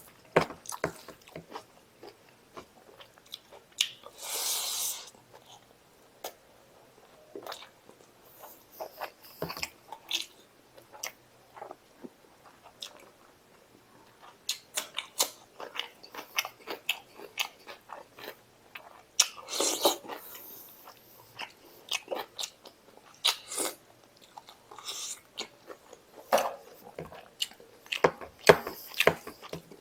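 Close-miked eating of mutton curry and rice by hand: wet chewing and lip-smacking in irregular short clicks, with two longer, louder bursts, one about four seconds in and one near the twenty-second mark.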